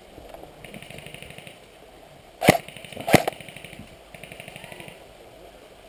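Airsoft electric guns firing three short full-auto bursts of rapid ticks, about fifteen shots a second. Two sharp cracks, the loudest sounds, come in the middle.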